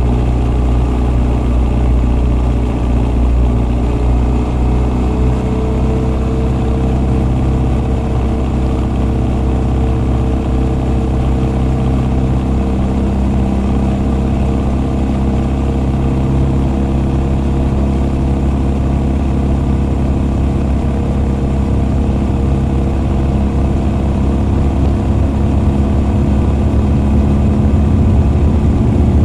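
Honda CB1300 SF inline-four motorcycle running under way, the open intake of its Keihin FCR41 carburettors and its Wyvern full exhaust both heard. The engine holds fairly steady revs, its pitch rising gently a few seconds in, and it grows a little louder near the end.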